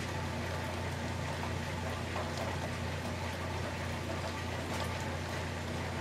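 Steady rain falling, with a few faint scattered drip ticks over a low steady hum.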